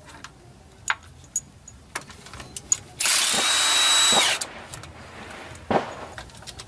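Impact gun spinning a 13 mm front-cover bolt out in one burst lasting just over a second, about three seconds in. Light metal clinks of socket and bolt handling come before it, and a sharp knock follows near the end.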